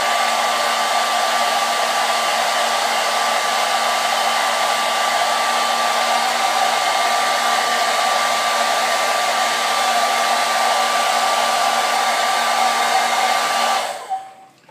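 Handheld hair dryer running steadily, a rush of air with a steady whine, switched off and cutting out near the end.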